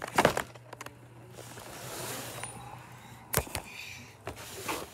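Handling noise from a cardboard toy box: sharp knocks right at the start and again a little past three seconds, with soft rustling and scraping between.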